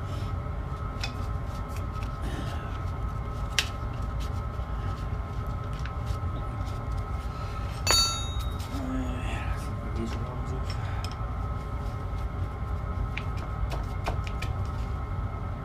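Small diesel air heater running with a steady low hum, with a few light clicks and one sharp metallic clink that rings briefly about eight seconds in.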